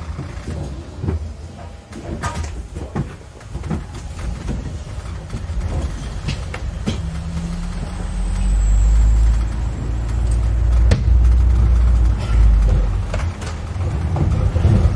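London bus on the move, heard from inside: a steady low engine and road rumble with scattered rattles and knocks. The engine grows louder about halfway through as it pulls harder.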